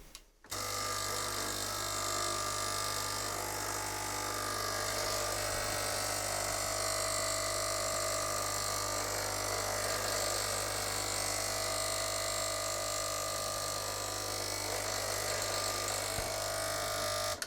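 KRUPS XP320 espresso machine's water pump buzzing steadily, switching on about half a second in and cutting off just before the end. It runs but delivers no water; the owner suspects a blockage from scale crystallization in the pump or hoses.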